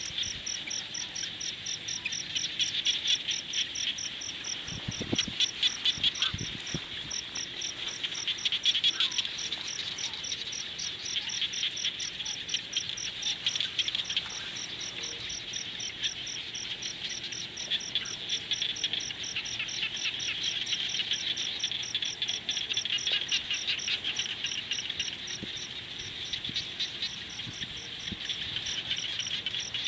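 Evening chorus of crickets and other insects: a cricket chirping steadily, about three chirps a second, over a dense high trilling chorus. A few soft low thumps come about five to seven seconds in.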